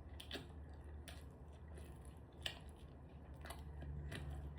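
Faint chewing and mouth sounds from someone eating crispy-skin chicken, with a few soft clicks, over a steady low background hum.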